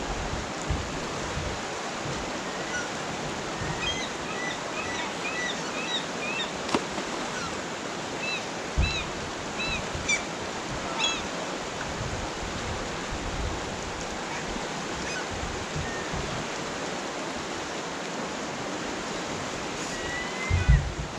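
Steady rush of a river running past, with a run of short high chirps a few seconds in and occasional low thumps.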